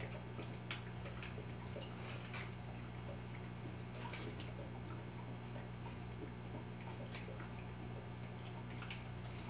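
Aquarium filter running in a new goldfish tank: a steady low hum, with water trickling back into the tank in small, irregular drips and splashes.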